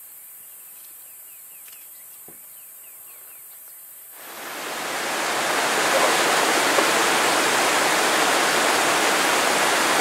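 A few faint high chirps over a quiet background, then the steady rush of flowing river water fades in about four seconds in and stays loud.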